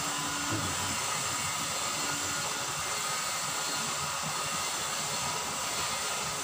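Water rushing steadily over a small cascade into a drainage ditch, a constant even roar of splashing water.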